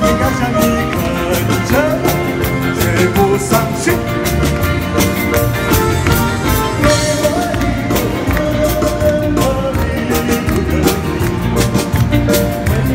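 Live band playing an upbeat dance song, with a drum kit keeping a steady beat, electric guitar and keyboard, and a voice singing over it through a microphone.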